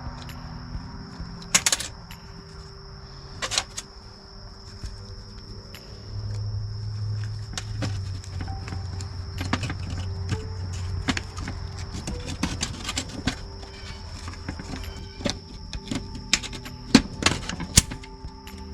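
Scattered clicks and knocks of a string trimmer's plastic throttle-handle parts and cable being handled during repair, with a sharper knock now and then, over a steady faint high tone and a low hum that swells about six seconds in.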